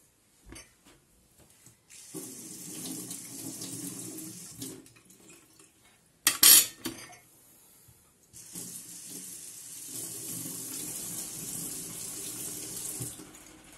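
Tap water running into a sink in two spells as a battery milk frother is rinsed clean, with a short, loud clatter between them.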